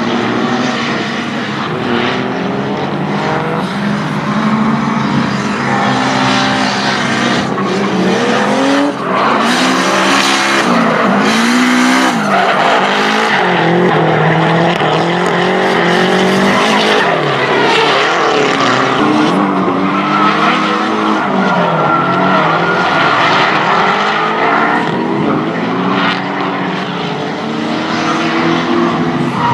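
Nissan S13 and S14 drift cars tandem drifting: engines revving up and down at high rpm over the continuous screech of sliding tyres.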